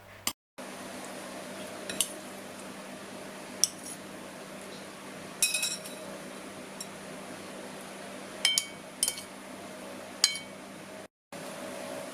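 A utensil clinking lightly against a dish a handful of times, spread over several seconds, over a steady low hum.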